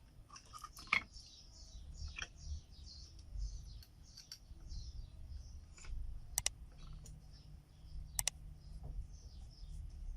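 Faint sharp clicks, some in quick pairs, over a steady low hum, with small high chirps throughout.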